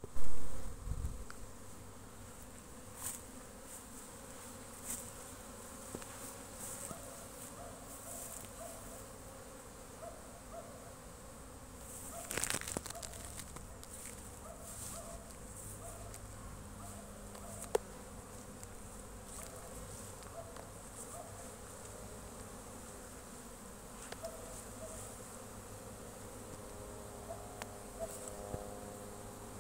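Honeybees buzzing in front of their hives: a steady hum of many bees, with short buzzes of single bees passing close, from busy foraging traffic at the entrances. There is a loud thump at the very start.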